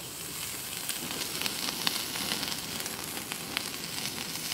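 Large pesto-and-olive-oil-marinated shrimp sizzling on a hot charcoal grill grate, a steady hiss with scattered small pops and crackles.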